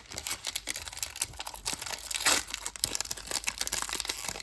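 Foil wrapper of a Pokémon booster pack crinkling and being torn open, with trading cards rustling as they are handled: irregular crackles and rustles, with a louder burst a little past halfway.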